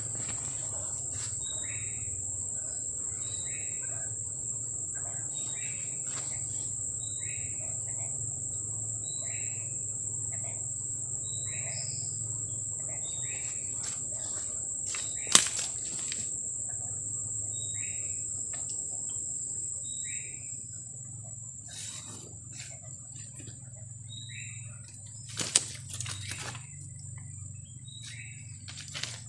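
Outdoor nature chorus: a steady high-pitched insect whine, with a short two-note call (a high note then a lower one) repeating about once a second. Two sharp clicks, the loudest sounds, come about halfway through and near the end.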